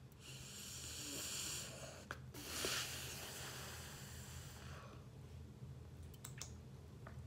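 A person's breath close to the microphone: two long, heavy breaths in a row, like a sigh, lasting until about five seconds in, over a steady low hum.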